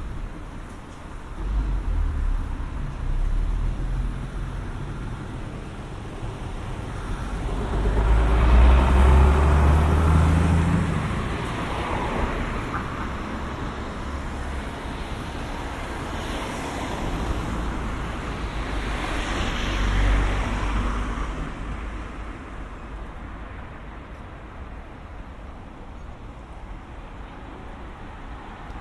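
Road traffic at a city intersection: several cars and a small van drive past one after another, engine rumble and tyre noise swelling and fading, the loudest pass about nine seconds in and another near twenty seconds.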